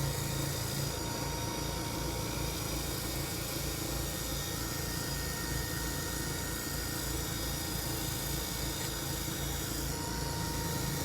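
Wood lathe running steadily, its motor humming with an even low throb from the spinning hackberry workpiece.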